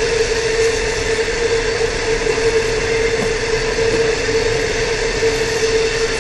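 Long freight train of loaded ore wagons rolling past, a steady noise of wheels on rail with a constant hum.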